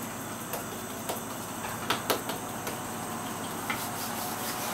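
A handful of soft taps and scrapes as a crushed chocolate-digestive biscuit base is pressed flat into a silicone baking tray. The clearest taps come about two seconds in, over a steady background hiss.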